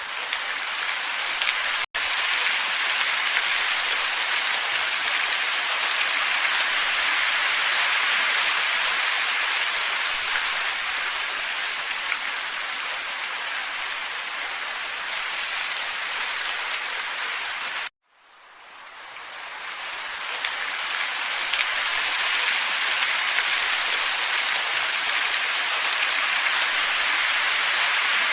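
Steady, even hiss of a calm wind ambience track with no gusts. It cuts out for an instant about two seconds in, and about two-thirds of the way through it drops to silence and swells back in over a few seconds, as a looped track restarting does.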